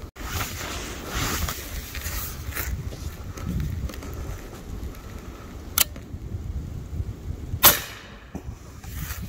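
A single shot from a moderated .30-calibre PCP air rifle, an Umarex Gauntlet 30: a short sharp crack a little over three-quarters of the way in. A smaller click comes about two seconds before it, over a steady low rustle of handling noise.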